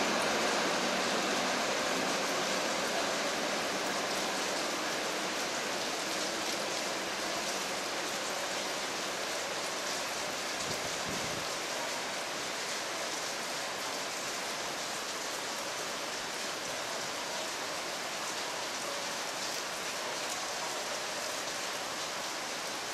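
Heavy rain falling in a steady hiss, getting slightly quieter over time.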